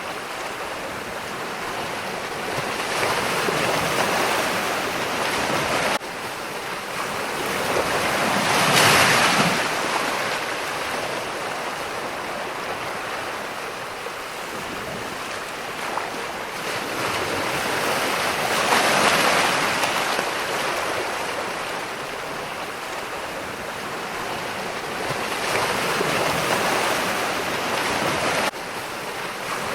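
Ocean surf: waves breaking and washing in, the noise swelling and ebbing in slow surges several seconds apart. The level drops abruptly about six seconds in and again near the end.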